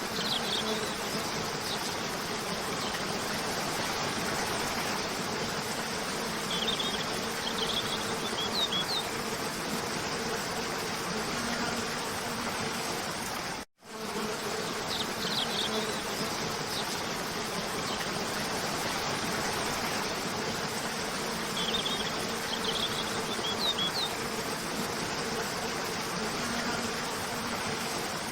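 Waterfall cascading in a steady rush, with a steady low buzz beneath it and short high bird chirps in small clusters now and then. The looped track cuts out for an instant about halfway through, then repeats.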